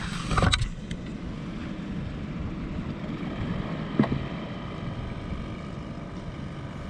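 A steady low machine drone, with a brief rustle of handling in the first second and a single sharp knock about four seconds in.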